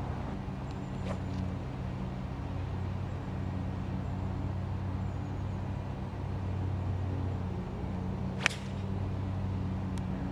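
An iron strikes a golf ball off the tee: one sharp click about eight and a half seconds in. Under it runs a steady low hum.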